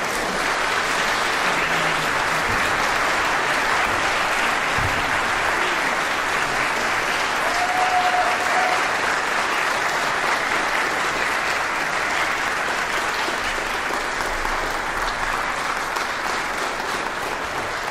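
Audience applauding in a church, breaking out right at the end of a woodwind quintet's piece and holding steady, easing slightly near the end.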